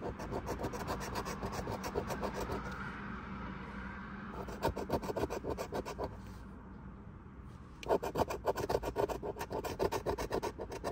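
A coin scratching the coating off a lottery scratch-off ticket in quick back-and-forth strokes, in three spells with short pauses between.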